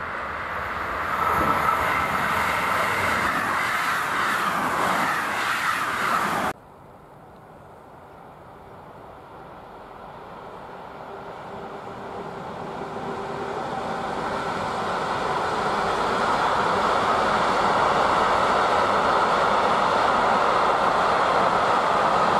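A train passing close by, cut off suddenly about six seconds in; then another train approaching, growing steadily louder.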